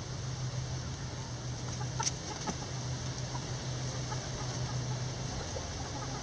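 Hens clucking softly and sporadically, over a steady low hum, with one sharp click about two seconds in.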